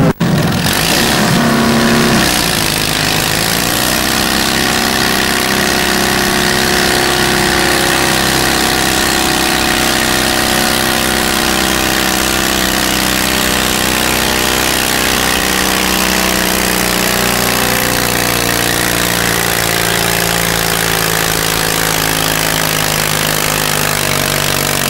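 Super Stock garden pulling tractor engine running hard and steady while dragging a weight-transfer sled, its pitch sinking slightly in the second half as the load builds.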